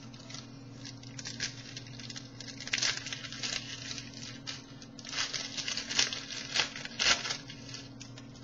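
Rustling and crinkling of hockey-card pack wrappers and cards being handled, in a run of short scratchy crackles that come in clusters, over a steady low hum.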